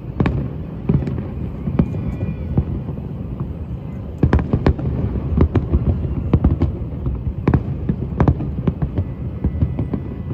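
Fireworks going off: many sharp bangs and cracks at irregular intervals over a steady low rumble of booms, most densely around four to five seconds in.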